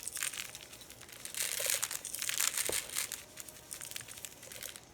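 Loose birdseed poured from a small cup, rustling as it falls over a peanut-butter-coated plastic bottle and into a bowl of seed, in irregular spells with one sharp tick about halfway through.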